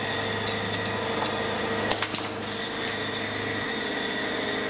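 Pneumatic blind-rivet puller setting a pulled rivet: one sharp snap about two seconds in, followed by a brief hiss of air, over a steady hum.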